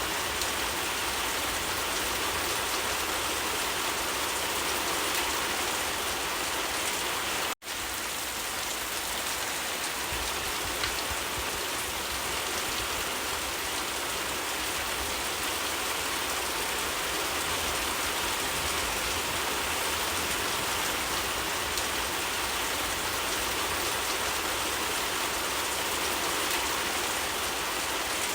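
Rain falling steadily on leaves, an even hiss of drops, cut to silence for a split second about seven seconds in.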